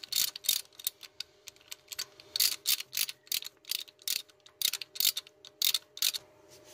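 A 3/8-inch ratchet clicking in irregular runs as its handle is swung back and forth, turning a 19 mm deep socket on an extension to unscrew an engine coolant temperature sensor.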